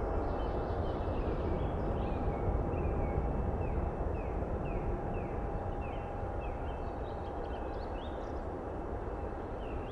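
Boeing 777 twin-jet climbing away after takeoff: a deep, steady jet rumble that slowly fades. Over it a bird calls in short falling chirps, about two a second.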